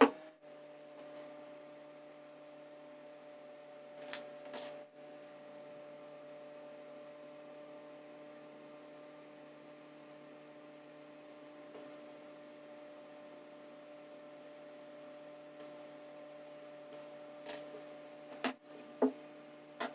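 Steady low hum. A sharp knock of plywood being set on a wooden table comes right at the start, followed by a couple of light clicks about four seconds in and a few sharp taps near the end from tools and wood being handled.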